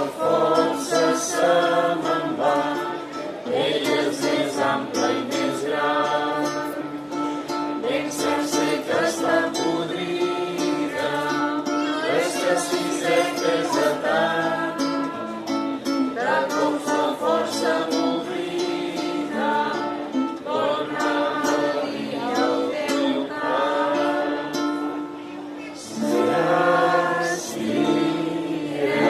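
Live song performance: several voices singing together over strummed acoustic strings.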